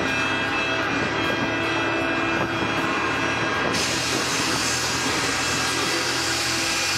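Ship horns sounding at a ship launch over a steady, dense roar of launch noise; the horn tones fade within the first second, and the noise turns hissier about four seconds in.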